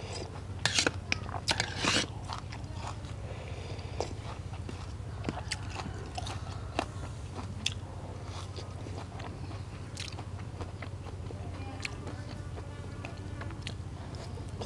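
Close-miked eating: a quick run of loud crunching bites in the first two seconds, then chewing with scattered wet mouth clicks and smacks, over a steady low hum.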